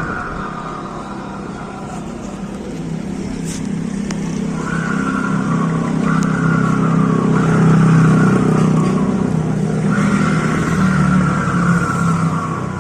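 Motorcycle engine running, growing louder toward a peak about two-thirds of the way through, with a high whine that comes and goes in stretches of about a second, each dropping slightly in pitch: the strange noise the owner is pointing out.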